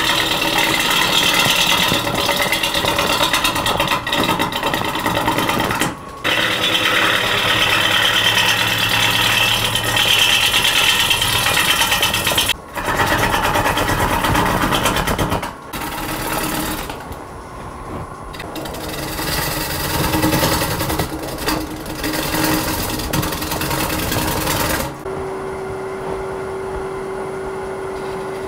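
Jet wood lathe spinning a bowl blank while a bowl gouge rough-turns it: a loud, continuous scraping and tearing of the cut, broken three times by a brief gap as the tool lifts off, then lighter cuts. Near the end the cutting stops and only the lathe's steady hum remains.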